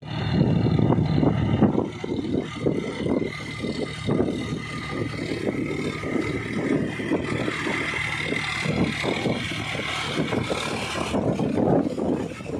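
John Deere 5050 D tractor's three-cylinder diesel engine running steadily under load as the tractor works a rotavator through a flooded, muddy paddy field. It is loudest in the first couple of seconds.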